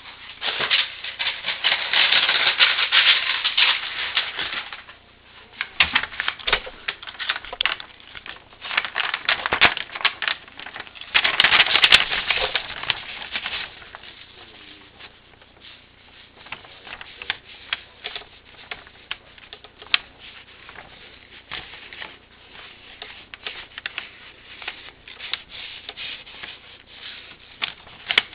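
Rapid crackling and rustling clatter, loud in spells during the first five seconds and again about twelve seconds in, then fainter but continuing: close handling or rubbing noise.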